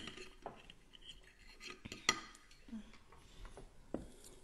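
Fork tapping and scraping on a dinner plate while eating: a few faint, separate clinks, the clearest about two seconds in.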